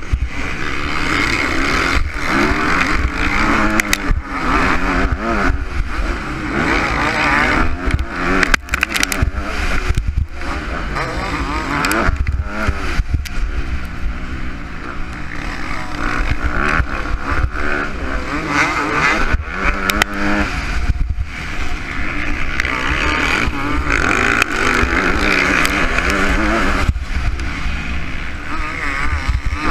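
Onboard sound of a dirt bike's engine racing on a motocross track, the revs rising and falling again and again as the rider throttles up and backs off, with frequent short knocks cutting through.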